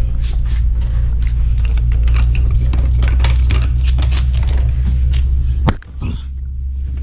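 Clatter and scraping from a red steel Pittsburgh floor jack being handled and slid under a car, with many short knocks and one sharp metallic click near the end, over a steady low rumble.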